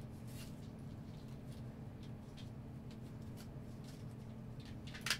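Faint scattered clicks and light rustling of small hard tool parts being handled, over a steady faint hum, with a sharper click right at the start and a few clicks close together near the end.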